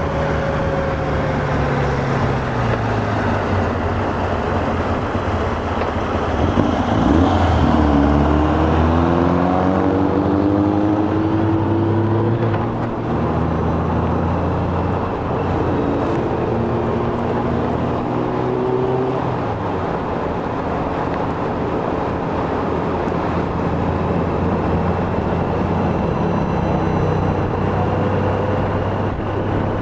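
Honda Gold Wing motorcycle riding in city traffic, its engine running steadily over road noise. The engine's pitch rises as it accelerates about seven seconds in and again in the middle, falls away, then holds level at cruise.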